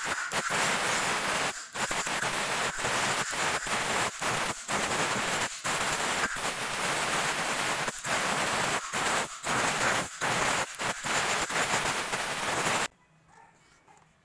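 Compressed-air blow gun hissing loudly at a brake caliper piston, blowing it clean, the blast broken by many brief releases of the trigger; it cuts off near the end.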